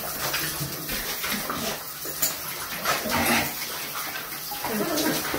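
Shower water spraying and splashing onto a tiled shower floor and wet dogs, with the dogs giving a few short falling whines.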